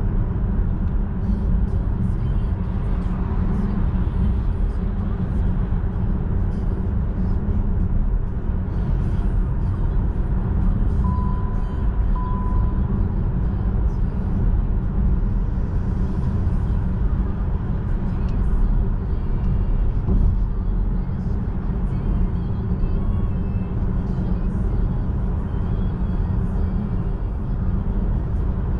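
Steady road and wind noise inside a Volkswagen ID.3 electric car cruising at about 80–100 km/h, with no engine sound. Two short electronic beeps come about eleven seconds in.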